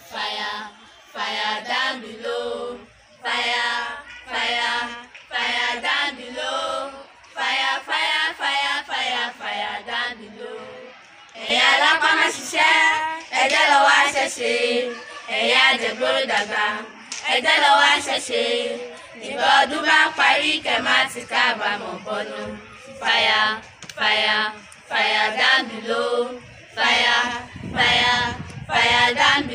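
A small group of teenage schoolgirls singing together unaccompanied, in short phrases with brief breaks between them. The singing grows louder and fuller about twelve seconds in.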